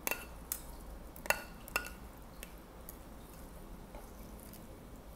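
A cookie scoop knocking and clicking against the mixing bowl while scooping dough: four sharp clinks with a short ring in the first two seconds, then only faint ticks.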